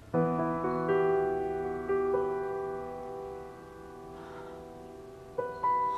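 Background score of slow piano chords, struck a few times and left to ring and fade away.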